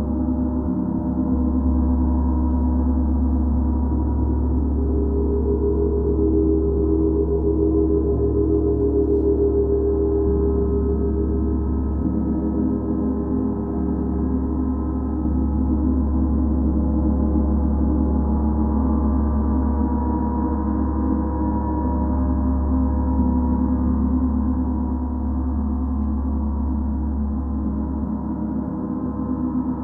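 Large Paiste Mercury planetary gong played continuously with a soft mallet. It keeps up a sustained deep hum with many ringing overtones, and swells a little about a quarter of the way in.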